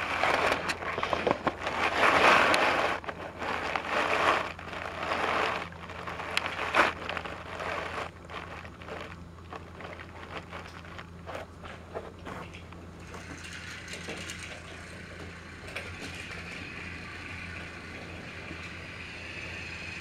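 Irregular crackling and scraping noises for the first several seconds. Then, from about thirteen seconds in, the steady whirr of a motorized toy train running along plastic track.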